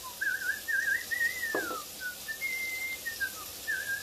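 A person whistling a tune: a single high note that wavers and slides up and down in short phrases with brief breaks between them. There is one short knock about one and a half seconds in.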